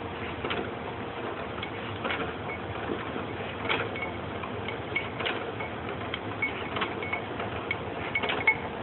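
Hand-cranked prosciutto slicer being worked: the crank and carriage mechanism run with irregular clicks and short high-pitched ticks over a steady mechanical noise.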